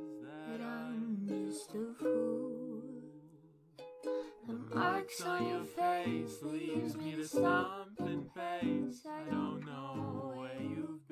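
Music with plucked strings and a voice singing. It dies away about two seconds in and starts again about four seconds in.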